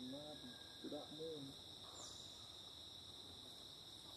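A steady, high-pitched chorus of insects droning without a break, with a brief faint falling whistle about two seconds in.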